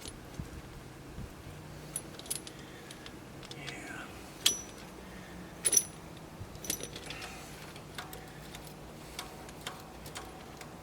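Steel tractor tire chain links clinking and jingling as they are handled, with scattered clinks and a few sharper ones around the middle.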